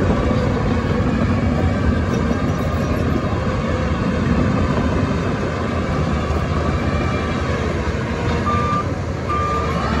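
Heavy diesel earthmoving machine engine running steadily with a low drone, and a reversing alarm beeping twice near the end.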